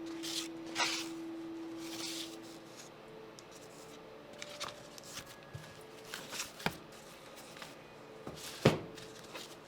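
Fragile old hardback books being handled, with paper rustling as pages are turned and soft taps of the covers. A sharper tap comes near the end.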